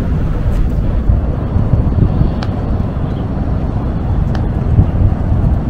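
Wind buffeting the microphone outdoors, an uneven low rumble that rises and falls in gusts.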